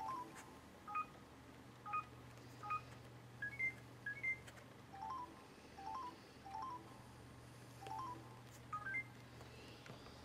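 Samsung YP-T10 MP3 player's menu beeps: about a dozen short electronic chirps, mostly two quick rising notes at varying pitches, one for each press of its touch buttons as the icon menu scrolls, over a steady low hum.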